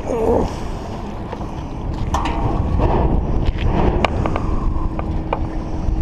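Wind buffeting the microphone, with a few sharp clinks and knocks as a fishing magnet with a steel bar stuck to it is pulled up out of the river.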